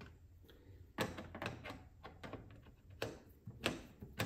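Light clicks and knocks of a Phillips screwdriver and hands on the plastic underside of an Epson flatbed scanner as a screw is undone, about half a dozen, irregularly spaced.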